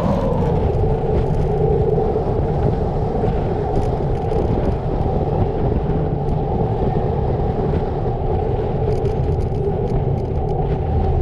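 A vehicle engine's pitch drops through the first second as the revs fall, then holds as a steady hum, over a continuous low rumble.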